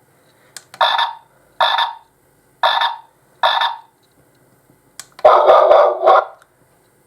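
AVANTEK D-3B wireless doorbell receiver playing a frog-croak chime through its small speaker: four short croaks, then a longer, louder croak about five seconds in.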